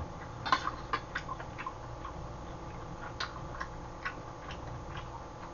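Eating sounds: about a dozen irregular small clicks and smacks of chewing, close to the microphone.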